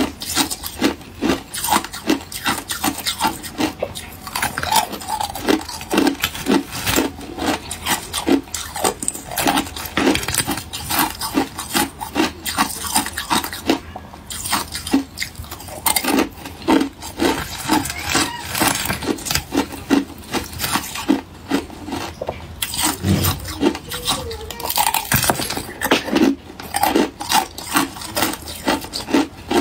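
Thin, clear ice being bitten and chewed: a fast run of sharp crunches and crackles, several a second.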